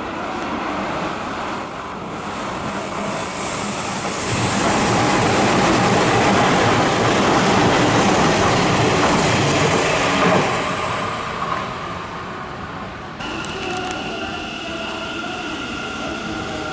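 A Hanshin electric train passing through the station at speed, a rushing noise that builds, is loudest midway, then fades. Near the end the sound changes abruptly to a quieter steady hum with a couple of high tones, as a Hanshin 5500-series local train is at the platform.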